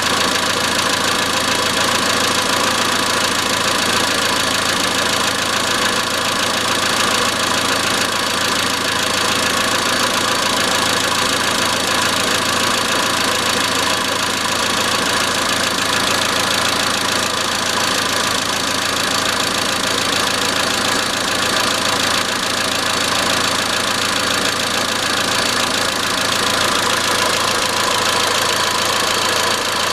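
Iran Khodro Samand's 1.6-litre 16-valve TU5JP4 four-cylinder engine running steadily with a rapid metallic knocking.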